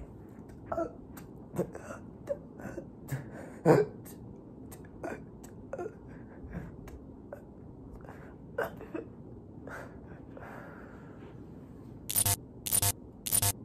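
A string of short, separate breathy sounds, some sliding in pitch. About twelve seconds in come three loud bursts of digital glitch noise in quick succession, as the recording breaks up.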